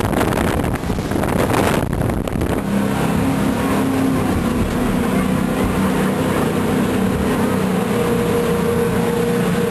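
Jet boat running at speed on a river: rushing wind and water noise, with a steady engine note coming through about two and a half seconds in and holding to the end.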